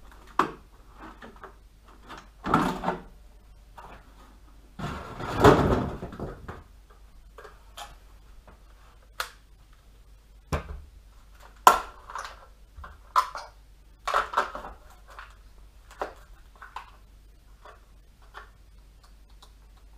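Hands taking the plastic body shell off a Traxxas X-Maxx RC truck and working at its chassis to fit the battery packs: scattered plastic clicks and knocks, with a longer scraping rustle about five seconds in.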